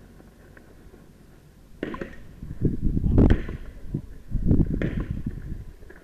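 Handgun being made ready: clacks and rustling of loading and handling, in two clusters about two and four and a half seconds in.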